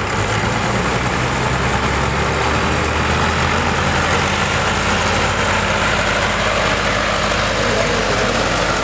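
Farm tractor engines running steadily at low revs, with a small vintage tractor driving off the pulling track. The low engine drone eases about four seconds in.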